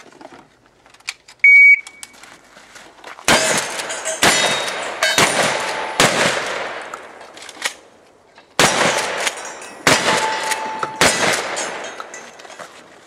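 A shot-timer start beep, then seven shotgun blasts from a Mossberg 835 pump-action 12-gauge: four about a second apart, a pause of about two and a half seconds, then three more about a second apart, each with a reverberating tail.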